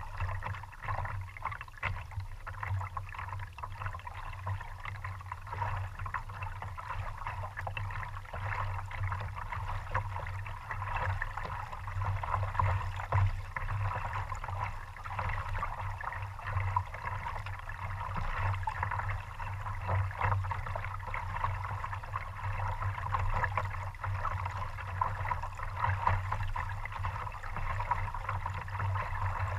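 Water gurgling and trickling steadily along the hull of a kayak moving over calm sea water, with a low rumble underneath.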